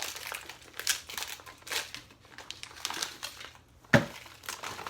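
Plastic packaging crinkling and rustling with scattered light clicks while whole strawberries are handled, then one sharp knock about four seconds in.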